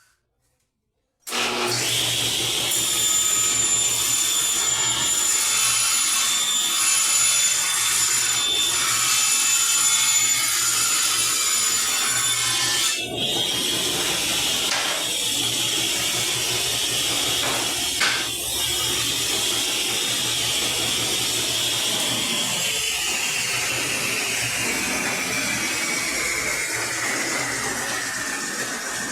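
Electric power saw cutting MDF board: a loud, steady motor whine over rasping cutting noise, starting abruptly about a second in. Over the last third the whine gradually falls in pitch.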